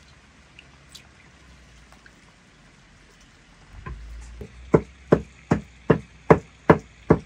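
Meat cleaver chopping raw meat on a wooden board, mincing it by hand: a steady run of about seven sharp chops, some two and a half a second, starting a little past halfway. Before that only faint small sounds, such as hands working berries in a basin of water.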